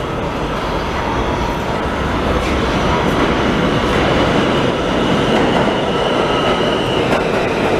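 New York City Subway train pulling into an elevated station, the rumble of its wheels on the rails growing a little louder as it nears. A thin, high wheel squeal runs through the middle.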